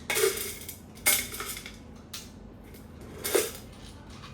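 Espresso gear being handled: four sharp metal clinks, about a second apart, the last one the loudest.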